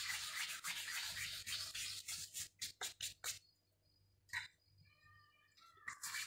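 Dried thyme being rubbed and crumbled between the fingers over a pan: a dry, scratchy rustling that stops about three and a half seconds in, with one short rub after the pause, and starts again near the end.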